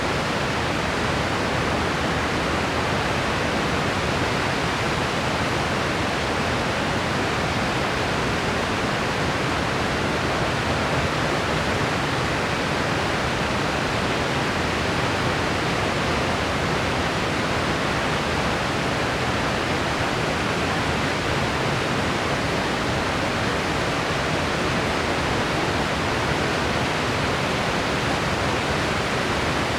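Steady, unchanging hiss of a white-noise track.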